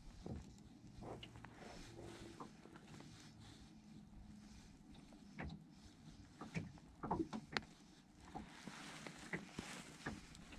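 Small waves lapping and slapping against the hull of a drifting fishing boat, irregular and faint, with a few light knocks.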